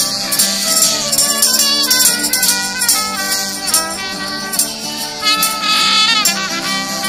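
A small street band playing live: a trumpet carries a melody over strummed acoustic and electric guitars, with a shaken rattle keeping a steady beat.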